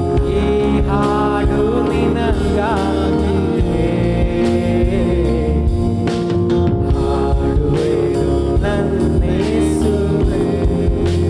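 A Kannada Christian worship song: a singer's voice over steady instrumental backing with a strong bass.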